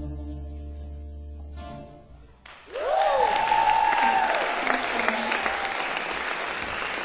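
A live band's closing chord, with acoustic guitars and oud, rings out and fades. About two and a half seconds in the audience breaks into loud applause, with a whoop that rises and falls.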